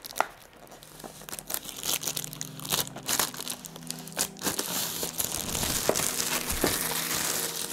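Clear plastic shrink-wrap being torn and pulled off a cardboard box and crumpled in the hand: irregular crinkling and crackling that gets denser and louder in the second half.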